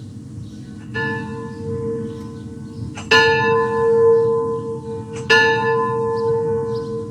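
A tolling bell struck three times at the same pitch, about two seconds apart, the first stroke softer, each left ringing and fading. Faint birdsong behind it.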